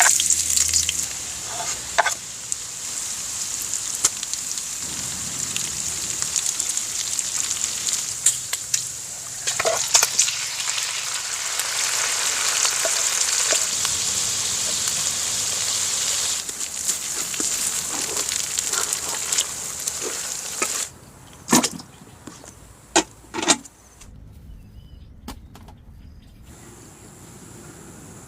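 Food sizzling steadily in hot oil in a pan, with scattered clicks. The sizzling stops abruptly about three-quarters of the way through, followed by a few sharp knocks.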